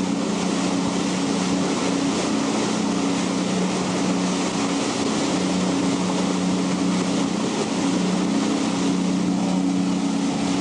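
Boat engine running steadily with an even hum, over wind and water rushing past.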